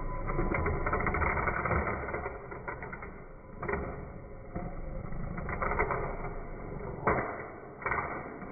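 Slowed-down sound of a 3D-printed quadcopter crashing: a low, smeared whir of its motors and spinning propellers, broken by several knocks as the frame and propeller blades strike the ground, the loudest a little after seven seconds in.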